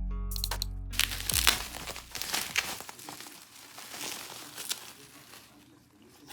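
Packaging crinkling and rustling as it is handled and opened, getting quieter toward the end. The last notes of a music cue ring out during the first second and a half.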